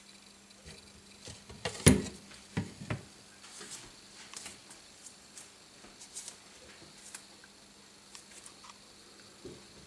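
Light clicks and knocks from glass terrarium lids and frames being handled, the loudest knock about two seconds in with two smaller ones just after, then scattered soft ticks over a faint steady hum.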